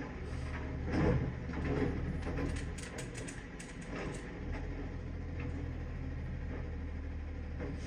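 Automated side-loader recycling truck's arm gripping, lifting and tipping a wheeled recycling cart into the hopper: clanks and knocks from the arm and cart, then a spell of recyclables clattering in about three to four seconds in, over the steady running of the truck's natural-gas engine.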